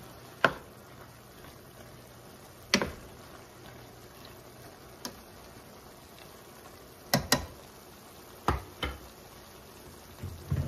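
A spoon stirring beef bulgogi and onions in a stainless steel sauté pan, knocking sharply against the pan every second or two, over the soft steady simmer of the meat in its juices.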